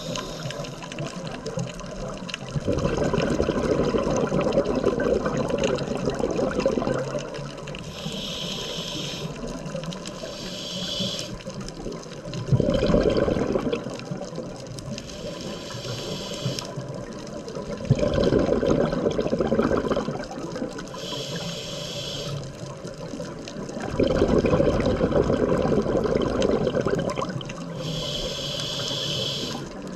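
Scuba diver breathing underwater through a regulator: a short hiss from the demand valve on each inhale, then a longer, louder gush of exhaust bubbles on each exhale, repeating about every six seconds.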